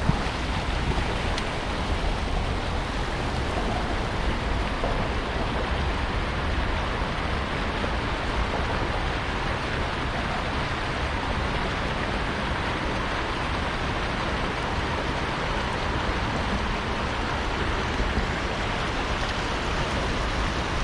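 Water rushing hard over a small man-made spillway, a steady even roar of noise.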